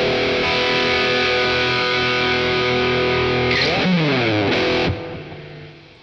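Squier Classic Vibe Custom Telecaster played through Amplitube 4's distorted '59 Bassman amp sim with delay and reverb: a held, overdriven chord rings steadily. About three and a half seconds in the pitch bends up and slides back down. The playing stops about five seconds in and the reverb tail fades away.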